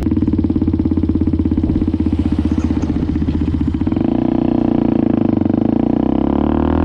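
Motorcycle engine pulling away and riding on, a steady pulsing note that changes about four seconds in.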